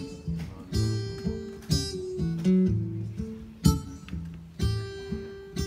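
Acoustic guitar playing a blues instrumental passage: picked bass notes and chords with sharp attacks, struck at uneven intervals.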